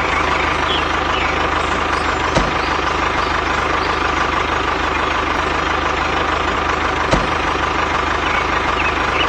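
A small motor running steadily at a constant speed, with an even whine, and a short knock about two and a half seconds in and another about seven seconds in.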